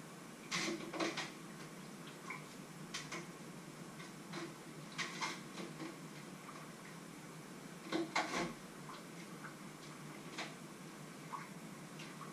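Dishes and utensils knocking and clinking in a kitchen sink as they are washed by hand, in irregular clatters, the loudest a little after the start and again about eight seconds in.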